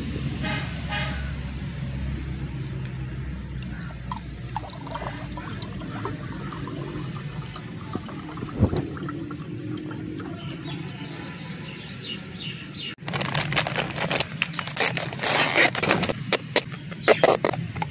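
Orange drink poured from a plastic bottle into a glass, over a steady low rumble. About thirteen seconds in comes a burst of sharp crackling clicks as a clear plastic sweets tub is handled.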